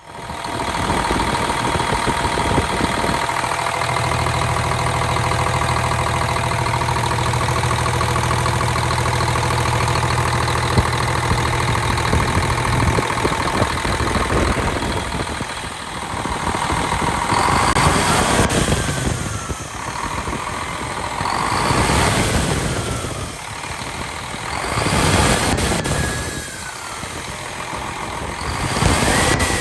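Diesel engine of a Freightliner FLD 112 semi truck running after injector replacement. It idles steadily at first, then is revved in repeated swells about every three to four seconds through the second half.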